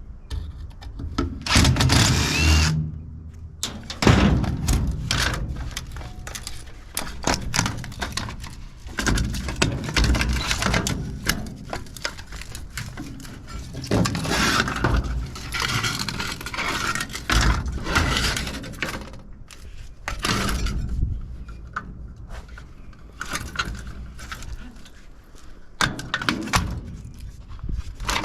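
Clanking, knocking and scraping of metal parts as a golf cart battery charger is pulled apart by hand and with tools, with many sharp knocks scattered throughout.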